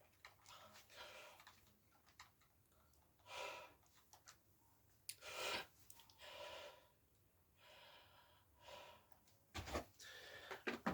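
Near silence with a few faint, short breaths scattered through it.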